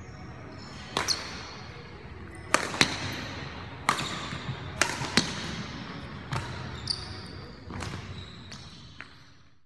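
Badminton play in a hall: sharp, irregular racket strikes on shuttlecocks, about a dozen, with short high shoe squeaks on the court floor after several of them.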